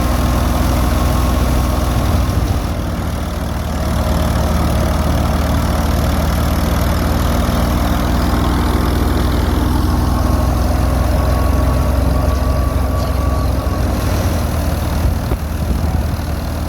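Engine of a wheat threshing machine running steadily, a continuous low drone.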